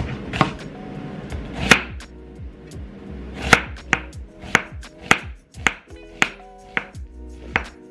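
Chef's knife slicing through a raw onion and knocking on a wooden cutting board, a string of sharp strokes that comes about two a second in the second half.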